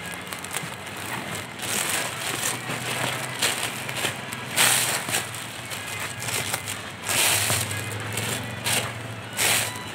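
Cellophane wrap crinkling in irregular bursts as it is bunched and twisted by hand, loudest about five seconds in.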